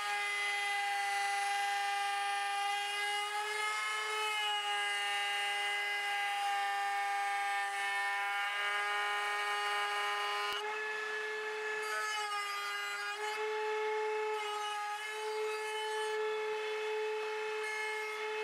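Table-mounted router with a flush-trim bit running at full speed, a steady high whine with a hiss of wood being cut. Its pitch shifts a little now and then as the bit takes up and loses load, trimming a plywood blank flush to its template.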